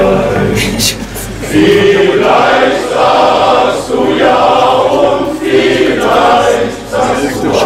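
Male voice choir singing in harmony, several held sung phrases with short breaks for breath between them.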